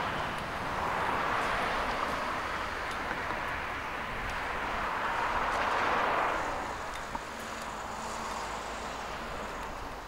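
Cars passing one after another on the road, their tyre noise swelling and fading, loudest about six seconds in.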